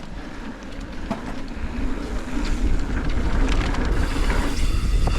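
Mountain bike rolling fast down a dirt jump line: tyre noise on dirt and wind rush on the microphone, getting louder as speed builds from about a second and a half in.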